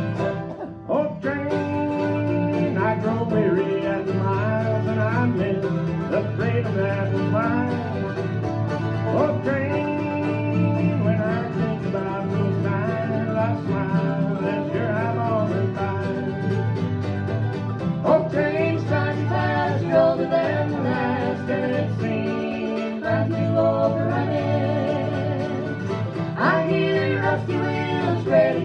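A bluegrass band playing, with banjo and guitar under a singing voice.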